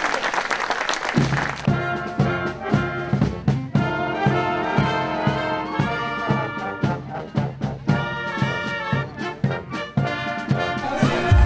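Applause dies away about a second in as a wind band starts playing, brass to the fore, over a steady beat.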